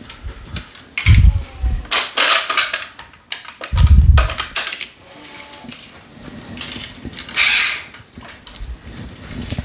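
Tennis string being pulled through the main strings by hand while weaving a cross string, making swishing rasps, with two dull knocks about one and four seconds in as the racket is handled and turned on the stringing machine.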